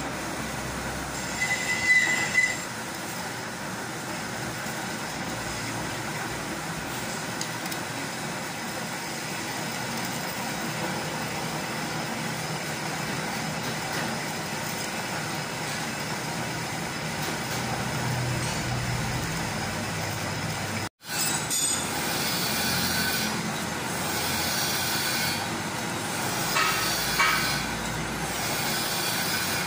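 Metal lathe running while a cutting tool machines a screw conveyor shaft: a steady mechanical noise, with a brief high squeal about two seconds in and a momentary break in the sound about two-thirds of the way through.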